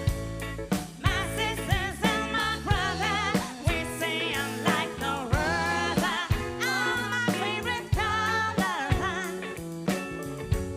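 Funk and soul band playing live: a wavering sung melody line over bass and regular drum kit hits.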